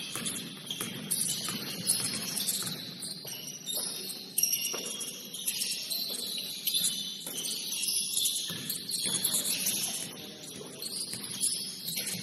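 Basketball shoes squeaking on a gym floor during play: many short, high squeaks, with a few sharp knocks.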